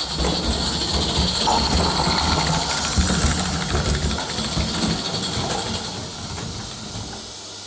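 Live steam O gauge model locomotive running past on metal track: a steady hiss of steam over the rumble of its wheels and small clicks at the rail joints. It grows louder as it passes, then fades near the end.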